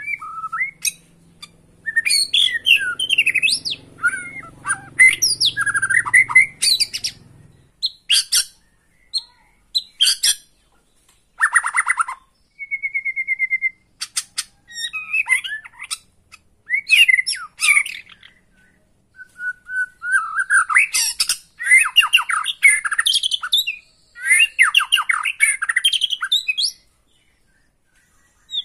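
White-rumped shama singing a long, varied song of rapid chattering phrases, squawks and whistles, in bursts with short pauses. About twelve seconds in it gives one clear held whistle.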